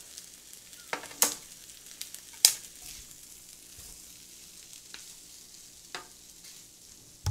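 Two wooden spatulas stirring and scraping octopus-and-abalone fried rice in a metal tray: a faint steady hiss broken by a few sharp clicks in the first three seconds and two lighter ones near the end.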